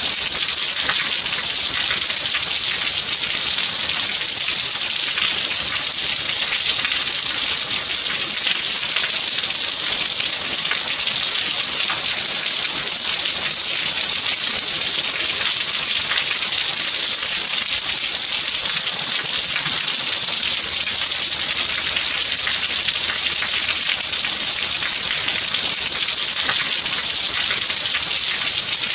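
Steady rain: a dense, even hiss of countless drops with a fine patter, unchanging throughout.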